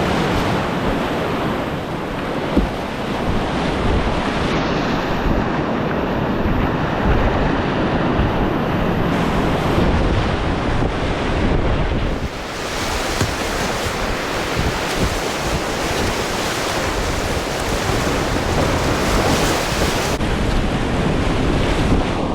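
Whitewater rapids rushing and splashing around a kayak, a loud, continuous roar heard through a GoPro on the paddler's life jacket, with water and wind buffeting the microphone.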